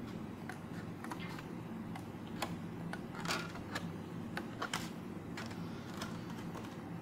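Scissors cutting through a plastic CD: a run of irregular sharp snips and cracks, loudest about three to five seconds in, over a steady low hum.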